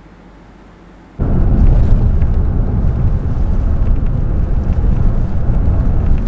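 A loud, low rumbling noise that cuts in suddenly about a second in and then holds steady.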